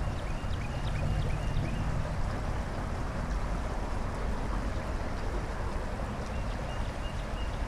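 Creek water rushing steadily under a low rumble. About six short, high chirps come in quick succession in the first two seconds, and a few fainter ones near the end.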